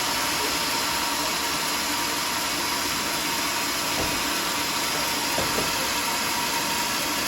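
Homemade bandsaw sawmill running with a steady, unbroken machine noise.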